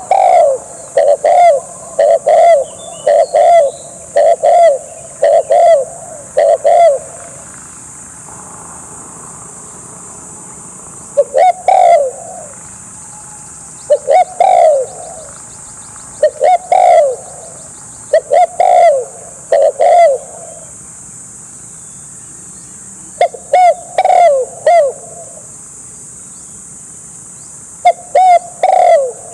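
Spotted dove cooing: runs of loud, repeated coo notes broken by pauses of a few seconds, over a steady high-pitched hum.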